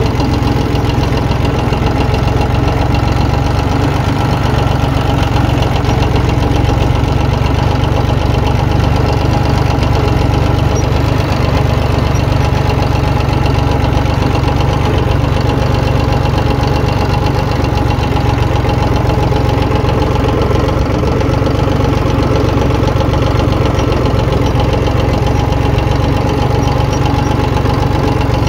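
Ford 1910 tractor's diesel engine running steadily as the tractor drives along, heard close up from the driver's seat.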